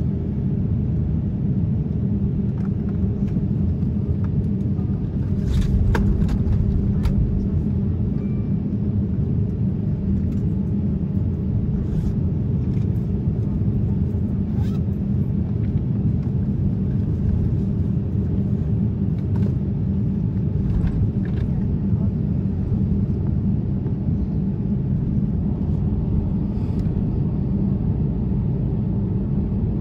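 Steady low rumble inside an Airbus A350-900 cabin while taxiing, with the Rolls-Royce Trent XWB engines at idle and a steady hum. A few sharp clicks and knocks sound over it about five to seven seconds in and again a few times later.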